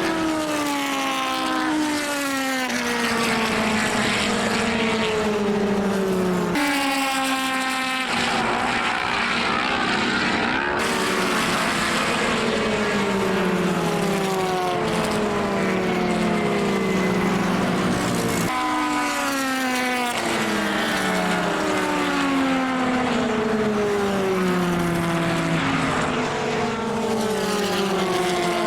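Racing car engines at high revs passing one after another, each engine note falling in pitch as the car goes by or lifts for a corner. The sound breaks off and restarts abruptly a few times, with overlapping cars in between.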